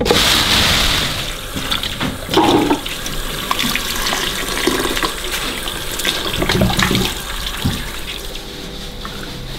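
Kitchen tap running steadily into a bowl of onions in a sink while hands rub the onions clean under the stream, with a few soft knocks of vegetables against the bowl.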